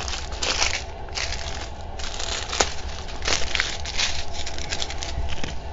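Small clear plastic zip bags of diamond painting drills crinkling as they are handled and sorted, with an occasional sharp tick.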